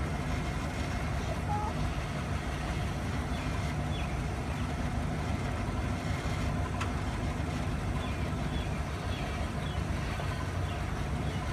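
An engine running steadily at idle, a low even hum that neither revs nor changes. A few faint high chirps sound over it.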